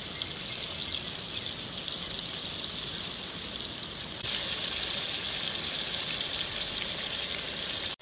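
Sliced tomatoes and green chillies sizzling in oil in an aluminium pot over a camping gas stove: a steady hiss that grows a little louder about four seconds in.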